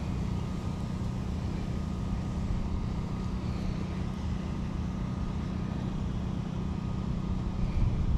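Steady low hum over a rumbling drone, constant with no distinct events: background machinery or traffic noise.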